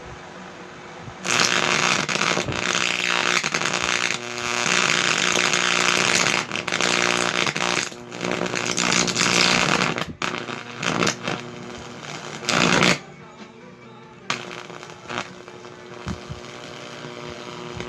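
High-voltage arc from a microwave oven transformer buzzing and crackling loudly in bursts, from about a second in until about thirteen seconds, as it burns into a shaded-pole fan motor's coil. A steady electrical hum runs underneath and is left alone near the end.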